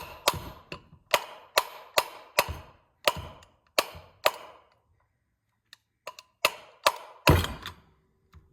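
A hammer striking a steel puller set in a Polaris Ranger clutch, a series of ringing metal blows about two a second, driving the stuck top part loose. The blows pause about halfway, then resume, the last one the loudest.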